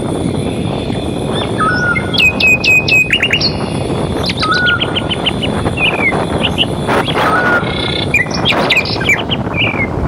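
Several birds calling and chirping over a steady low rush of wind. One bird repeats a short call that rises and then holds level, about every two to three seconds, while others give quick runs of falling chirps.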